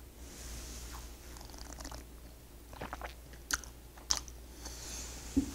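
Mouth sounds of drinking and tasting red wine from a glass: quiet sipping and swallowing, then a few short, sharp lip smacks and tongue clicks in the second half.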